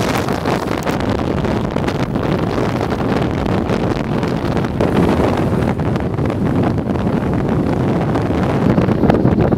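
Blizzard wind buffeting the microphone: a steady, loud rushing rumble.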